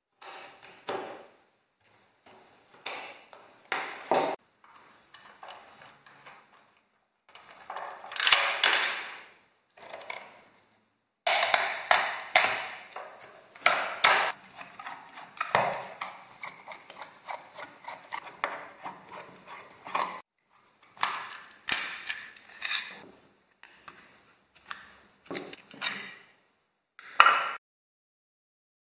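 Metal and plastic parts of an old desk fan being handled and taken apart by hand: scattered clicks, knocks and light rattles, with a longer, louder noise about eight seconds in.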